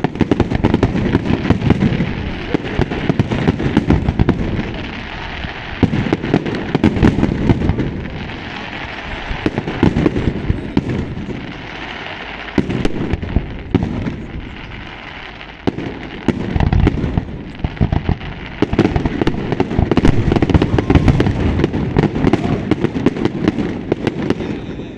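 Fireworks display: a dense, continuous barrage of booming aerial shell bursts and sharp crackling, many reports a second, with the loudest stretch in the second half.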